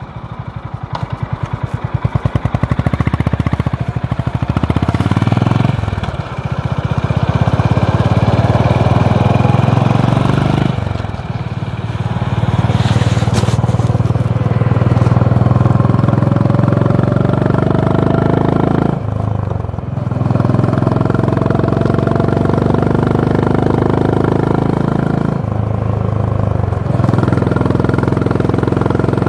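Honda H'ness CB350's air-cooled single-cylinder engine and exhaust under way: it pulls away from a pulsing low-rev thump, the revs climbing, then runs up through the gears, the note dipping briefly four times at the gear changes.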